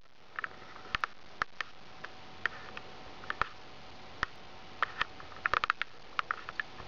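Irregular light clicks and taps, some single and some in quick clusters, over a faint steady hum.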